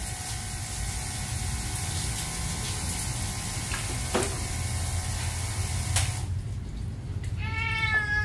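Water from a shower hose running into a stainless-steel sink, cutting off sharply about six seconds in. Near the end a wet Maine Coon cat meows once, a long call.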